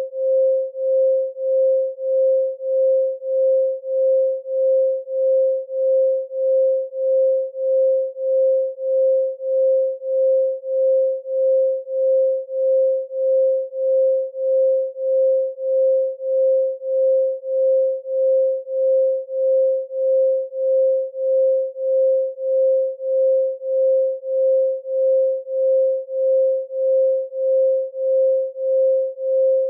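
Synthesized 528 Hz pure tone, one steady pitch, pulsing evenly in loudness about one and a half times a second.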